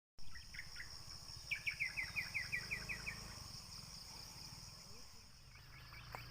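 Steady high-pitched drone of insects such as crickets, with a bird calling a quick run of about nine chirps, about four a second, from about a second and a half in.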